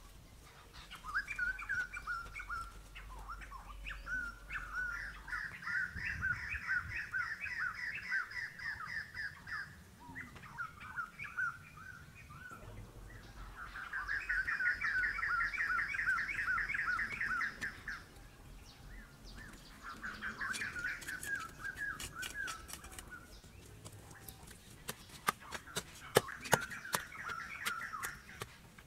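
Songbirds chirping in bouts of rapid, repeated phrases lasting a few seconds each, with short gaps between bouts. In the last third comes a scattered run of sharp clicks.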